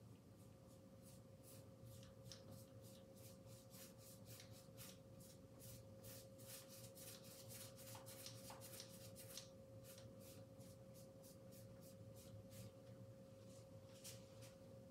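Faint paintbrush strokes on canvas: a run of short, scratchy swishes several times a second, thickest in the middle and thinning out near the end, over a steady faint hum tone.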